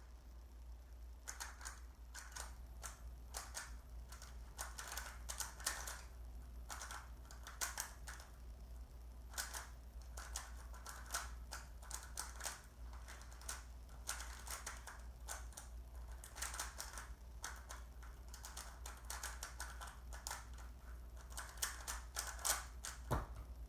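Plastic Rubik's Cube being turned fast in a speed solve: quick flurries of clacking layer turns with short pauses, and one sharper click near the end.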